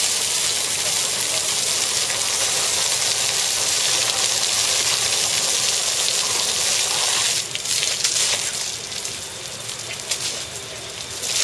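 Water from a hose spraying and spattering onto an Asian elephant's trunk, a steady hissing spatter. About seven and a half seconds in it turns softer and more uneven as the spray moves up over her head and back.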